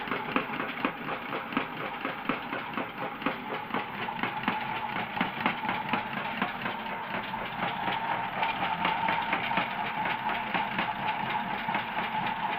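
Toy washing machine spinning badly off balance: its small motor whines steadily while the drum rattles and knocks rapidly, shaking the whole machine.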